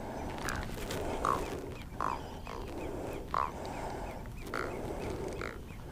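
Blue catfish grunting while it is handled out of the water: a series of short raspy croaks, a little over one a second, which catfish make by working their pectoral spines.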